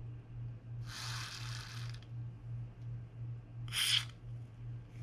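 Aerosol can spraying through a straw nozzle, two hisses: one about a second long, then a shorter, louder one near four seconds in. It is soaking a seized anti-reverse part inside a fishing reel to loosen it.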